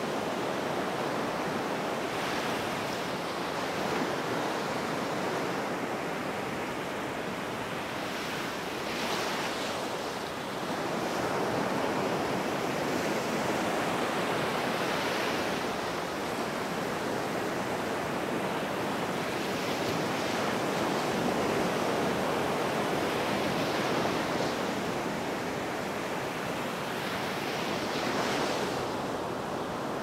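Small sea waves running up onto a shore: a steady hiss of surf that swells every five or six seconds as each wave comes in.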